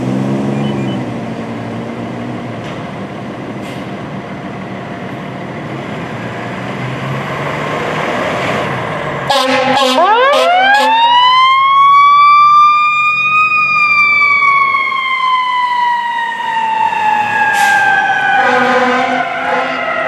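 Fire truck's diesel engine running and pulling out. About nine seconds in, a horn sounds and a mechanical siren winds up, rising for a few seconds, then slowly coasts down in pitch. The horn sounds again near the end.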